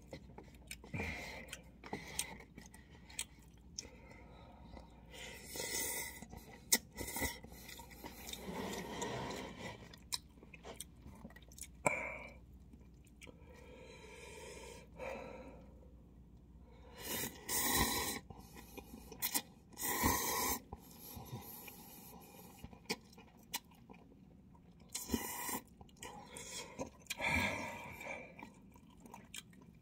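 A person chewing and slurping instant cup ramen noodles close to the microphone: irregular wet mouth clicks, with a few longer slurping bursts.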